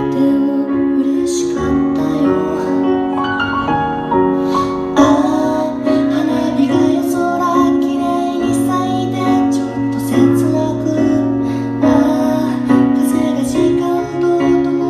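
Music: a song with a singing voice over piano and band accompaniment.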